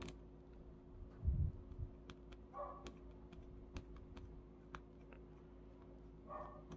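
Small parts of a spinning reel clicking and tapping as it is taken apart by hand, in scattered sharp clicks, with a heavier low thump a little over a second in. Two brief mid-pitched sounds come in, one around the middle and one near the end.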